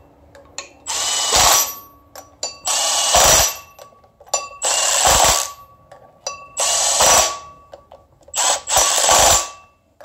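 Milwaukee cordless impact wrench firing in short bursts of under a second, six in all, about every two seconds, snugging down the flywheel bolts one after another.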